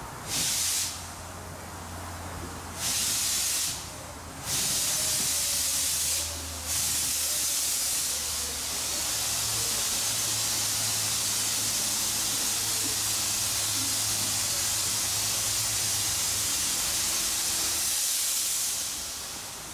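Small steam tank locomotive moving slowly with its cylinder drain cocks open, venting steam: three short loud hisses in the first few seconds, then one long steady hiss that stops near the end.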